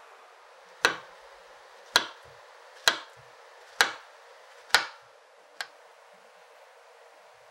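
Six sharp taps or knocks, about one a second, the last one fainter.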